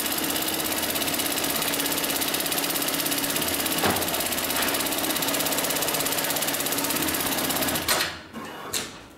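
HighTex MLK600-3020 automatic pattern sewing machine stitching lashing-strap webbing at high speed, a fast even rattle that stops abruptly about eight seconds in as the stitch cycle ends. A single click follows just before the end.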